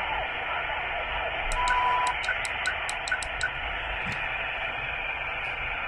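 Ailunce HS-2 (Q900P) shortwave transceiver playing steady receiver hiss through its small speaker while tuned to the 20-metre band in upper sideband. About one and a half seconds in there is a short steady beep, and with it a quick run of about ten clicks as the tuning is stepped up.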